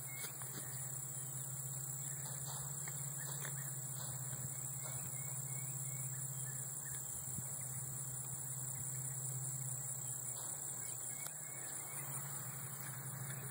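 Steady high-pitched insect chorus, crickets or similar, with a steady low hum beneath and faint scattered rustles of footsteps through grass.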